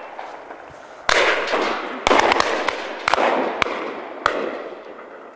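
Shotgun shots across an open field: three loud reports about a second apart, each trailing off in a long echo, followed by a couple of smaller sharp cracks.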